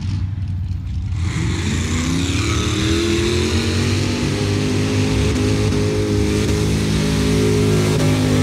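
Mud-drag truck's engine revving up hard about a second in, its pitch climbing for a couple of seconds and then held at high revs as the truck runs down the mud pit.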